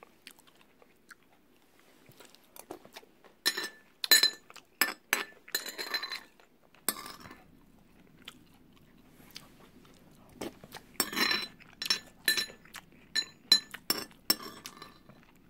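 A metal spoon clinking and scraping against a ceramic bowl while scooping up boiled silkworm pupae, with crunchy chewing. The clinks come in two clusters, after a quiet start.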